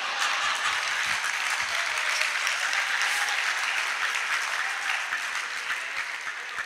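An audience applauding, a dense patter of many hands clapping that thins and fades near the end.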